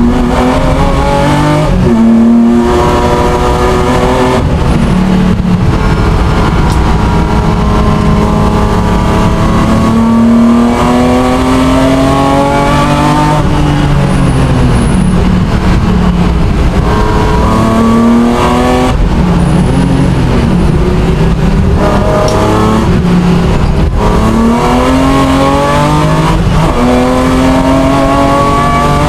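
Racing car's engine heard from inside the cockpit, revving hard as it pulls up through the gears, with a sudden drop in pitch at each upshift. Several times it falls away more slowly as the car brakes for a corner, then climbs again.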